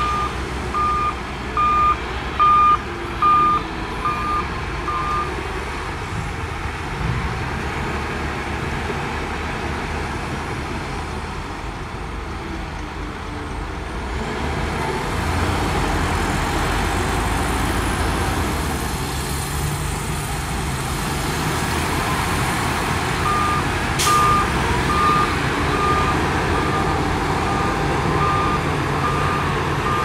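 Shantui DH17 bulldozer's diesel engine working steadily, growing louder about halfway through. A reversing alarm beeps at a steady pace, about one and a half beeps a second, for the first five seconds and again over the last six or so.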